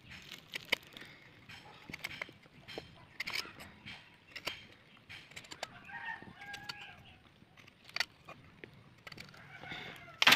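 A machete blade scraping and knocking against a thin stick as it is whittled: a run of short irregular clicks and taps, with one loud sharp knock near the end. A rooster crows once about six seconds in.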